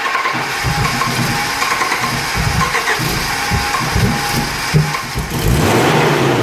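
Starter cranking the '83 Volvo 244's engine with the throttle held open: it turns over steadily and sputters, then catches briefly about five and a half seconds in and begins to rev. This is the no-start the car has had since its conversion to LH2.2 fuel injection and EZK ignition.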